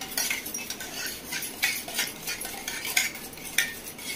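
A spoon beating raw eggs in a stainless steel bowl, clinking and scraping against the metal in quick strokes about three times a second.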